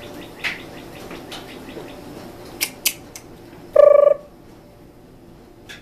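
A puppy gives one short, high yip, a bit under half a second long, about four seconds in. A few sharp clicks come before it.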